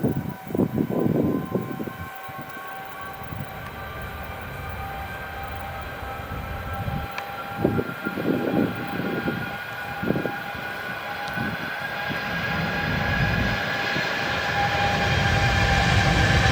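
Boeing 787-8 Dreamliner's jet engines whining, several tones slowly rising in pitch as the sound grows steadily louder. Gusts of low rumbling noise come and go over it.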